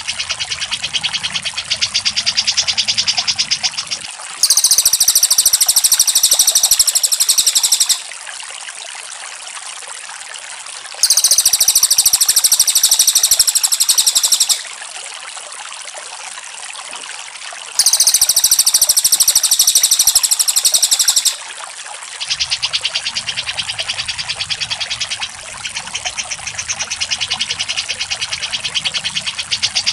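Looped bird-song masteran recording of cucak jenggot (grey-cheeked bulbul) and cililin: rapid, dense trills of many notes a second. Three louder, higher-pitched trill passages of three to four seconds each start and stop abruptly, and a low hum sits under the softer passages.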